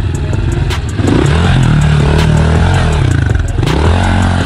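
Honda CRF110 pit bike's small single-cylinder four-stroke engine revving up and down several times as the bike drops into a concrete bowl and rides it.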